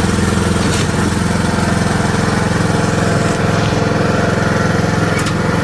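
Riding lawn mower engine running steadily as the mower drives off, loud and even throughout. A faint click about five seconds in.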